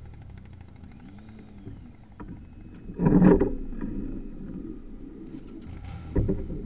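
Motorcycle engine idling at a standstill, a low steady rumble, with other vehicles going past close by. A loud burst of engine noise comes about three seconds in and fades, and another vehicle comes up loud just before the end.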